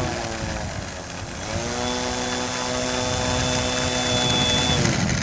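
Radio-controlled model plane's motor and propeller running as it taxis on the ground: the pitch dips, climbs back to a steady level about a second and a half in, and winds down near the end as the throttle comes off. A thin high whine runs along with it.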